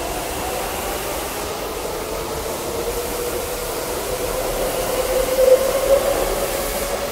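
Taipei Metro train moving along the platform as it pulls out. Its motor whine climbs slightly in pitch and is loudest about five to six seconds in, over a steady hiss of heavy rain.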